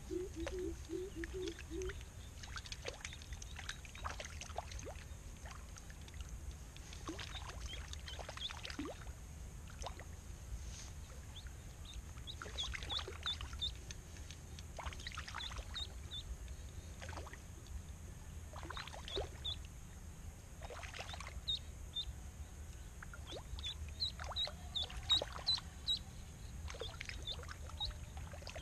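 Small splashes and water sloshing as a live duckling on a line is jigged across the shallow water surface as bait for snakehead. Short high chirps come in clusters now and then.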